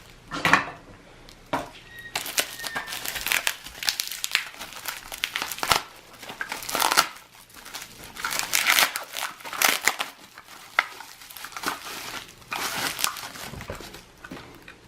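Packaging being crumpled and torn open by hand to unwrap a small part, in irregular crinkling bursts with a few sharp crackles.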